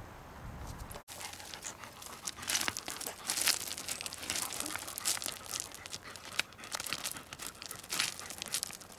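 German shepherd digging in dry, stony dirt: its claws scrape and crunch the gravelly soil in an irregular run of strokes, starting about a second in.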